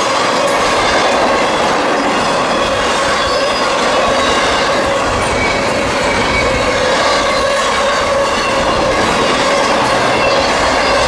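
CSX intermodal freight train's trailer and container cars rolling past at speed: a steady loud clatter and rumble of wheels on rail, with a sustained squealing tone from the wheels over it.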